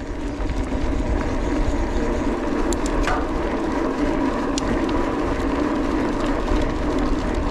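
Mountain bike's knobbly tyres rolling fast on a gravel fire road with a steady hum, over the low rumble of wind on the microphone. A few light ticks come about three seconds in.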